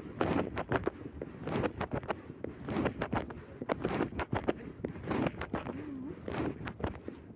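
Handling noise on a covered phone microphone: irregular knocks and clicks over rustling.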